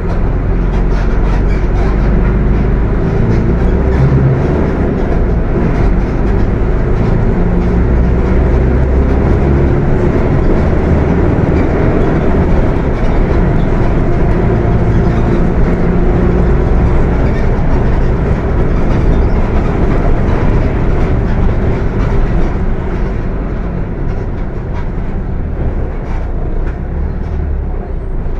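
Mercedes-Benz OF 1721 bus running under way, its diesel engine rumbling, with the transmission growling loudly over it. It eases off a little near the end.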